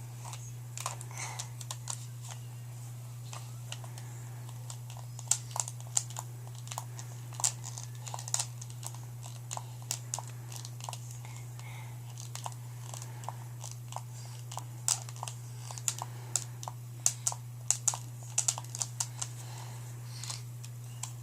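Plastic buttons and casing of a toy alarm-clock phone clicking and tapping as a toddler fiddles with it: irregular light clicks, coming thicker from about five seconds in, over a steady low hum.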